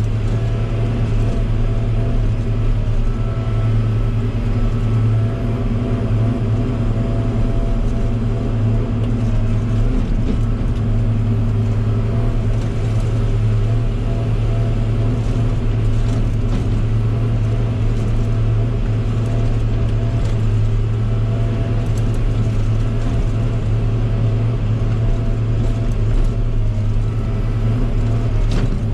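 Log loader's diesel engine running steadily under load, a constant low hum.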